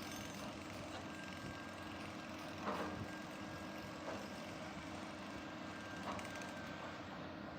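Excavator engine running steadily while it digs, with a few short knocks from the working machine, the loudest about three seconds in.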